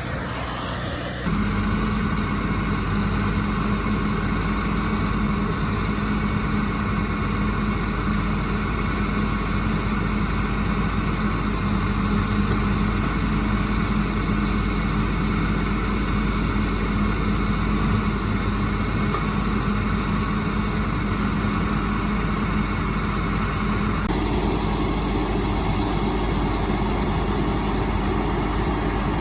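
An engine running steadily with an even hum, its sound changing in tone about three-quarters of the way through.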